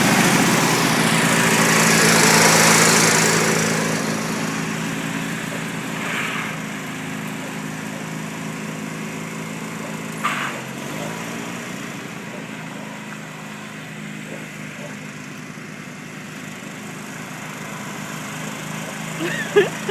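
Small lawn mower engine running, loudest a couple of seconds in and then fading. About halfway through the engine speed dips and picks back up, just after a short click, and a brief sharp sound comes near the end.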